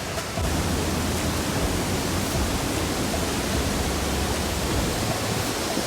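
Waterfall: a steady, even rush of falling water, with a deeper low rumble underneath from about half a second in.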